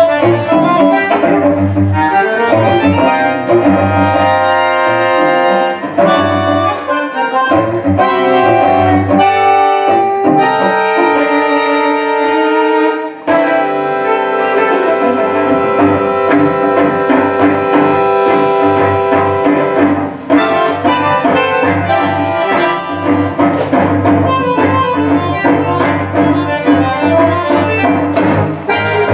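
Live new-tango duet of bandoneon and cello: sustained bandoneon chords and melody over a pulsing cello bass line, with a short pause about thirteen seconds in before the music resumes.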